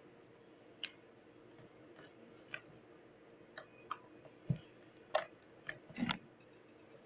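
Slime being poked and squeezed, giving irregular sticky clicks and small pops that come more often in the second half, two of them with a soft low thump.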